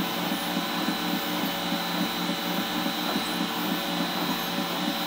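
BCN3D Sigma 3D printer printing: its stepper motors whir in short notes that change pitch every fraction of a second as the print head moves, over the steady hum of its fans.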